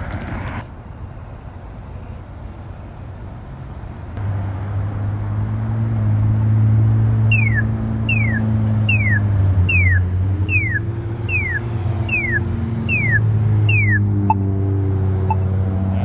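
Road traffic rumbling past, getting louder about four seconds in. From about halfway through, a row of nine identical falling chirps sounds, evenly spaced at a little under one a second.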